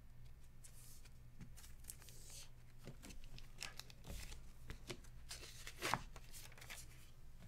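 Baseball cards being handled and sorted: quiet rustling and scattered light clicks, with one sharper click about six seconds in.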